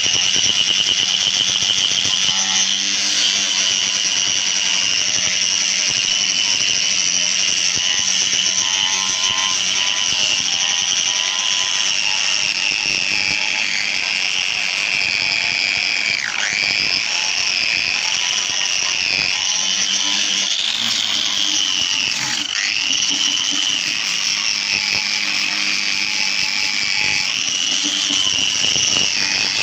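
A high-speed power tool running with a steady high-pitched whine, its pitch dipping sharply and briefly twice, about halfway and about three-quarters of the way through.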